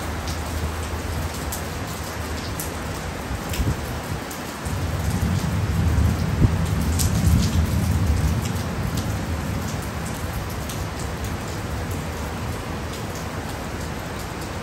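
Heavy driving rain falling steadily, with scattered sharp ticks of drops striking a nearby surface. About five seconds in, a low rumble of thunder swells for a few seconds and fades away.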